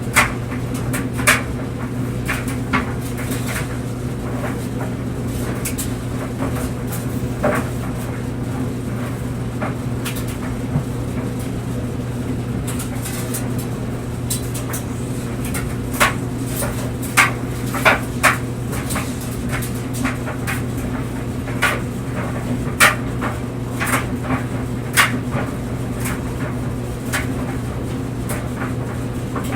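Clothes dryer running, with a steady hum from the motor and turning drum. The tumbling load knocks and clicks against the drum at irregular moments, a few times every several seconds.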